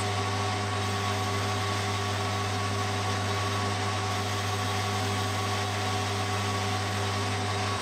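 Metal lathe running steadily with a low hum and a few steady tones, as a boring tool cuts a taper inside the cast venturi of a model engine crankcase.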